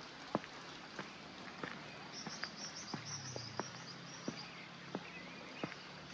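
Footsteps on a hard path at an even walking pace, about one and a half steps a second. A brief high fluttering chirp sounds in the middle, and a faint low hum comes in about halfway.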